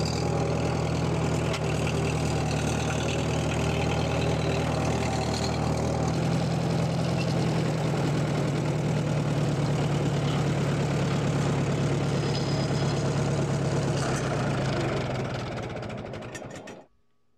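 1942 Farmall M's four-cylinder engine running steadily at low speed, then shut off: it fades, slows to separate firing strokes and stops near the end.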